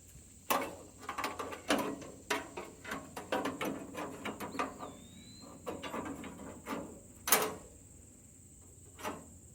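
Metal band-saw blade being handled and worked onto the blade wheels of a Frontier OS31 sawmill: a run of irregular clanks, knocks and scrapes, the loudest knock about seven seconds in and one more near the end.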